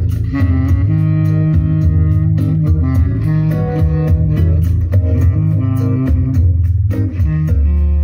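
Instrumental music with guitar and bass guitar over a steady beat, played back through a pair of Boston Acoustics A150 Series I three-way loudspeakers with 10-inch woofers, heavy in the bass.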